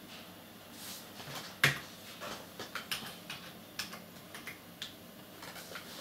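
Irregular sharp clicks and taps of computer keyboard keys being pressed, the loudest about one and a half seconds in, over a faint steady room hum.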